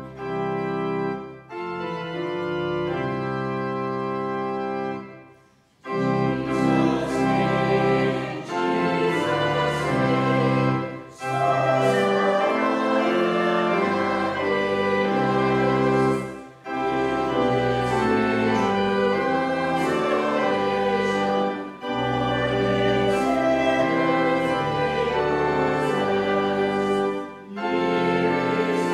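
Church organ playing a hymn in sustained chords, phrase by phrase, with short breaks between phrases about every five or six seconds.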